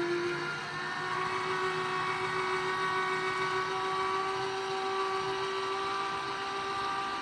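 Electric juicer motor running steadily while juicing beetroot, apple and ginger, a constant whine over a hiss, its pitch shifting slightly about half a second in.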